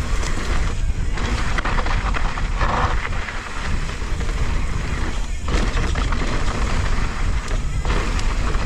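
Mountain bike riding down a dirt trail: wind buffeting the action camera's microphone over a steady low rumble of tyre and trail noise, with a few brief dips in the noise.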